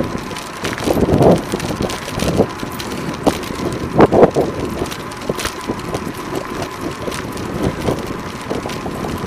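Riding a bicycle along a street: steady wind noise on the microphone and road noise, with short knocks about one second and four seconds in.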